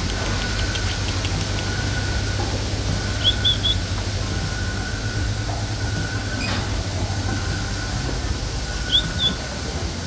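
Steady low mechanical rumble and hum of dairy milking-shed machinery. A faint whine comes and goes over it, and a few short high chirps sound about three seconds in and again near the end.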